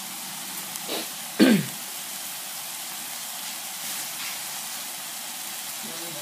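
Ground pork, chilies and onion simmering in a sauce in a frying pan, a steady soft sizzle. A short sound falling in pitch breaks in about a second and a half in.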